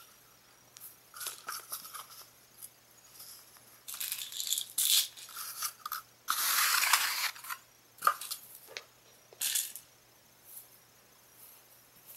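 Kittens batting toys about on carpet: irregular rattles, rustles and light knocks, with a longer rustle of about a second past the middle and a sharp knock about eight seconds in.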